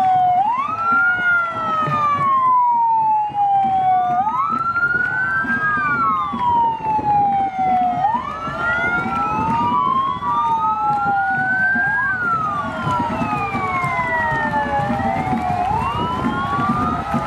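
Several police sirens wailing at once, out of step with each other, each rising and falling in pitch about every four seconds, over a low rumble of vehicles.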